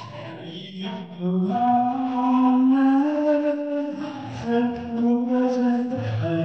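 Live male singing through the stage microphones and speakers: a slow, melodic song sung in long, held notes.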